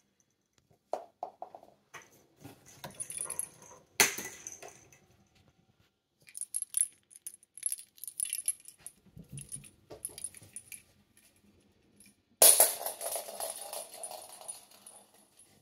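Cat toy balls with small bells inside jingling and rattling as a cat paws at them in a cardboard box, with scattered knocks against the box. A sharp knock about four seconds in, and a loud clatter about three-quarters of the way through.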